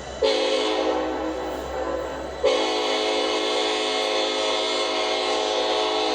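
Nathan Airchime K5LLA five-chime horn on a Metra SD70MACH locomotive, sounded for grade crossings. A shorter blast comes just after the start, then a long held blast from about two and a half seconds in.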